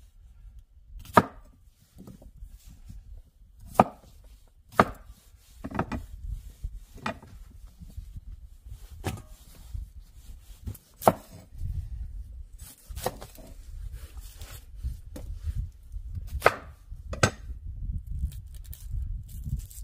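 A knife chopping on a cutting board in single, separate strikes, about a dozen spaced irregularly a second or two apart, over a low rumble.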